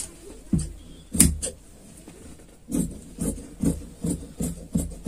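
Tailor's shears cutting through dress fabric: a couple of crisp snips about a second in, then a steady run of snips, roughly two or three a second.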